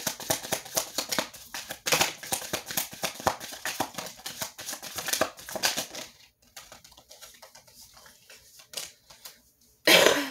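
Tarot cards being shuffled by hand: a fast run of riffling clicks for about six seconds, then quieter handling of the cards, with a short louder brush of cards near the end.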